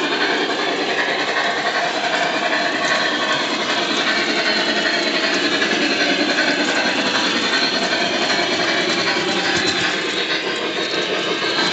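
Lionel American Flyer S-gauge Challenger model locomotive running steadily around the track pulling a train of cars: a continuous rumble and clatter of the motor and wheels on the rails.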